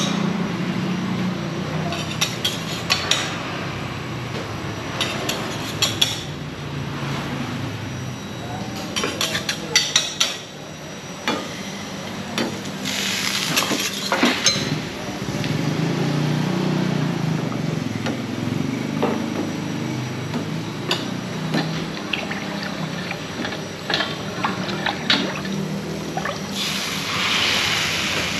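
A metal ladle clinks and scrapes against small hot serabi pans in clusters as coconut-milk batter is poured in and spread, with short bursts of hissing where the batter goes into the hot pans. A steady low hum runs underneath.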